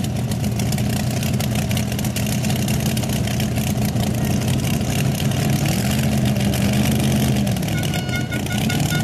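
Pulling tractor's racing engine with open exhaust headers idling steadily. About six seconds in it picks up briefly in revs, then settles back to idle.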